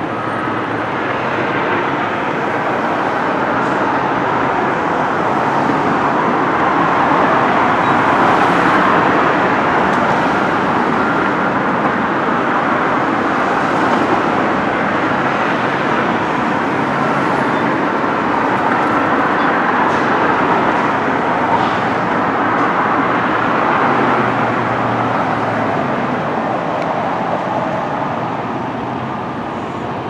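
Road traffic passing: a steady rush of vehicle noise that swells and eases a couple of times as traffic goes by.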